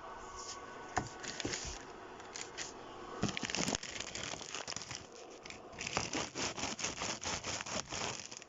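Plastic courier packaging being cut open with a blade and handled: irregular crinkling, scraping and tearing with many small clicks.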